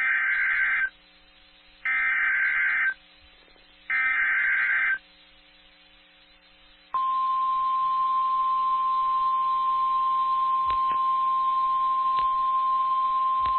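Emergency Alert System SAME header: three one-second bursts of buzzy digital data tones, a second apart. Then, about seven seconds in, the National Weather Service's steady single-pitch 1050 Hz attention tone begins. Together they announce the severe thunderstorm warning that follows.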